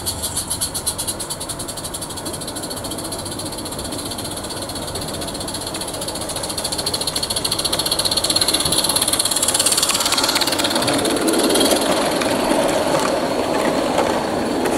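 Roundhouse live-steam garden-railway locomotive working with a fast, even chuff as it approaches with its train. It grows louder over the middle of the clip. Near the end a rumble of coach wheels running over the rail joints takes over as the carriages pass close by.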